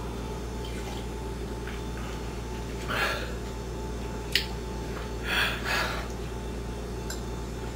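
A man breathing hard through his mouth in a few short, breathy gasps, about three seconds in and again around five to six seconds, with a single light click between them, over a steady low hum; the breathing of someone whose mouth is burning from a habanero pepper.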